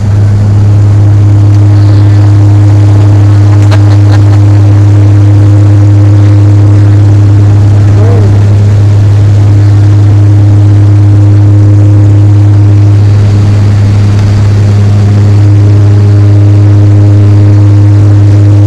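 Turboprop airliner's engines and propellers at takeoff power, heard inside the cabin during the takeoff roll: a loud, steady drone with a strong low hum. It comes up suddenly at the start as the engines are run up for takeoff.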